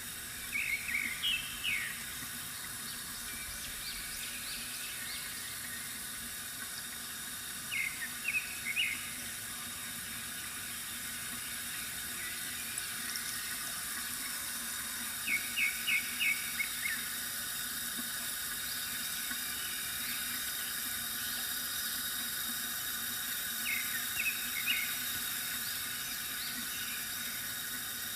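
Steady trickle of water from a bamboo fountain, with small birds chirping in short runs of quick notes four times, about a second in, around 8 seconds, around 15 seconds and near 24 seconds.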